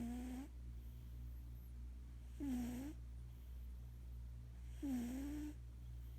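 Sleeping cat snoring: a short pitched snore that dips and rises on each breath, three times about two and a half seconds apart.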